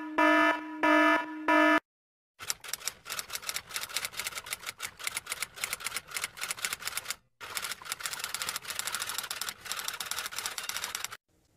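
Typewriter sound effect: rapid, irregular clacking of typewriter keys in two long runs with a brief break between them, preceded near the start by a few short electronic beeps.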